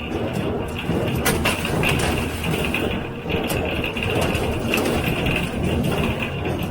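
John Deere 348 square baler and its #42 pan kicker ejector running steadily while baling hay, with a dense mechanical clatter and a few sharp knocks scattered through it.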